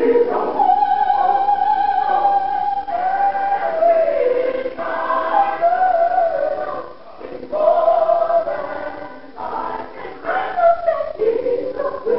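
Gospel choir singing in long held phrases, with brief breaks between them. A female soloist sings at the microphone over the choir.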